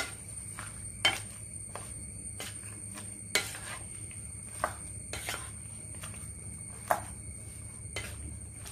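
Wooden spatula stirring and turning chunks of raw jackfruit, jackfruit seeds and drumstick in a non-stick pan. It knocks sharply against the pan about seven times, at uneven intervals of a second or two.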